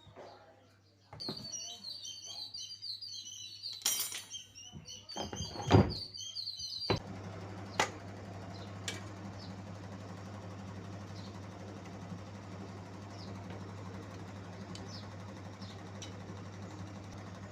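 Whirlpool washing machine starting to run after a few knocks, then a steady low hum with occasional light clicks. Before it starts, short high chirps like birds are heard.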